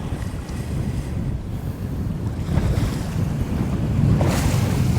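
Wind buffeting the microphone over choppy lake waves washing against a boat, with a louder rush of water noise about four seconds in.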